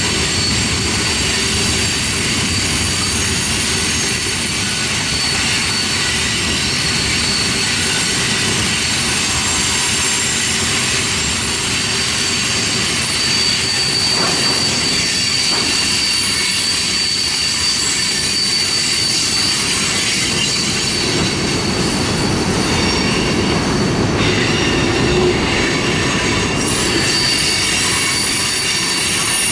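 Freight cars rolling past on curved track, steel wheels squealing against the rail in several high, steady tones over a continuous rumble and rattle of the wheels. The squeal tones change pitch a little over halfway through.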